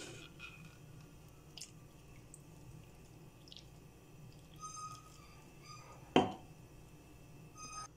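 Milk poured into a glass mixing bowl of flour and egg, with a few short ringing clinks and one loud knock about six seconds in.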